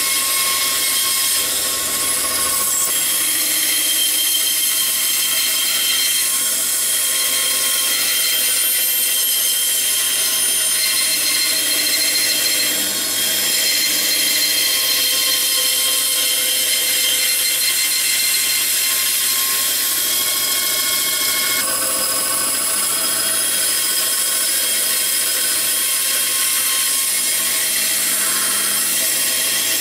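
Bandsaw running and cutting through a thick wooden block along a curved line: a steady machine sound with several high steady tones, with a slight change in tone about a third of the way in and again about three quarters of the way through.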